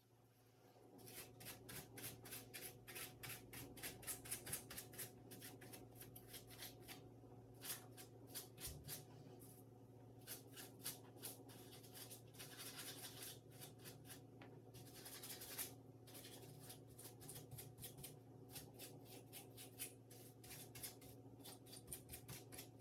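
Runs of light clicks and scraping from hands working on a laptop's plastic case and parts, over a steady low electrical hum.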